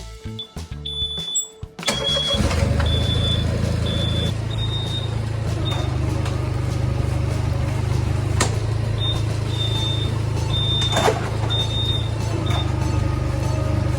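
Kubota ZP67 rice transplanter's engine starting about two seconds in, then running steadily, with a high tone sounding on and off above it.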